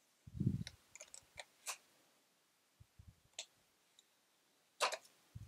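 Light, scattered clicks and taps of fingers and fingernails on the plastic housing of a mini sewing machine as a sticker is picked at and peeled off by the battery compartment. There is a soft thump about half a second in and a sharper click near the end.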